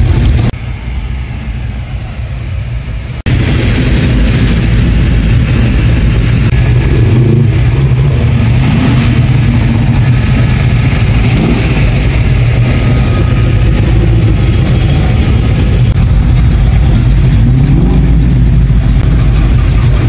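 Cars with V8 engines running at low speed, with a few revs that rise and fall in pitch. The sound drops lower for about three seconds near the start, then cuts back in suddenly.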